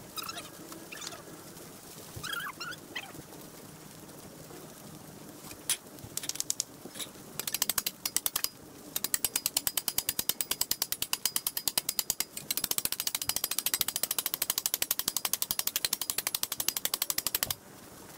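Rapid, evenly spaced mechanical clicking like a ratchet. It starts in short bursts about six seconds in, then runs steadily and cuts off suddenly near the end. A few faint bird chirps come before it.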